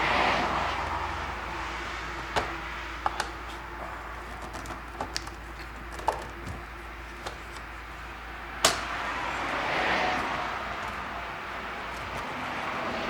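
Scattered light plastic clicks and knocks as an Audi TT instrument cluster is worked into its dash opening with its spring clips pressed down, with one sharper knock about two-thirds of the way through. Under them runs a steady low hum, and a rushing noise swells up twice.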